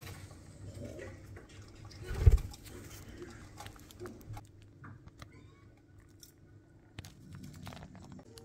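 Pet budgerigars chirping faintly among small clicks and scratches, with one low thump about two seconds in.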